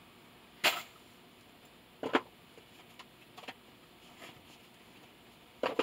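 Handling noise: three sharp, brief clicks or rustles from objects being handled, about a second in, about two seconds in and near the end, with a few fainter ticks between them.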